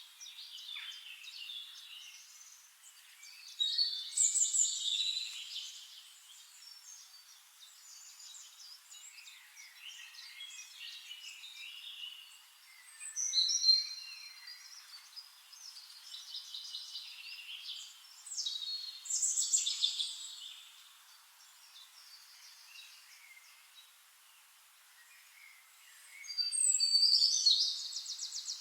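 Dawn chorus of several songbirds chirping and singing over one another, with louder bursts every several seconds and a fast trill near the end.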